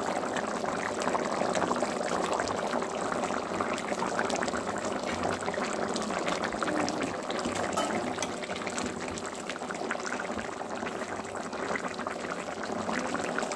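Chicken curry with potatoes and peas boiling in a pot: a steady, dense bubbling and popping.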